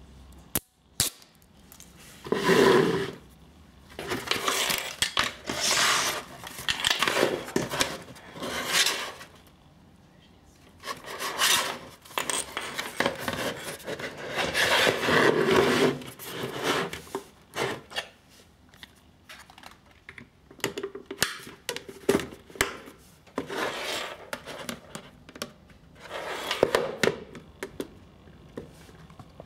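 Hands rubbing and pressing a plastic adhesive camera mount onto a hard helmet shell, in repeated bursts of rubbing and scraping lasting a second or two, with scattered small clicks of plastic parts.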